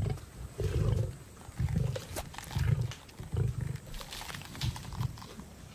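Lions growling over a kill in a series of short, deep rumbles, about one a second, with a few sharp clicks of feeding between them.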